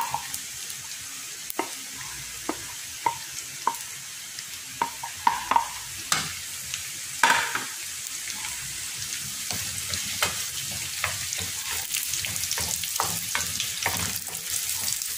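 Chopped garlic and onions sizzling in melted butter in a frying pan, with a wooden spatula tapping and scraping on the pan as they are stirred. The sharp taps come mostly in the first half, and the sizzle grows stronger in the second half.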